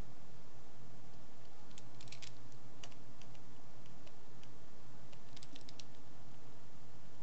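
Computer keyboard keys clicked in two short flurries, about two seconds in and again about five and a half seconds in, with a few single clicks between, over a low steady hum.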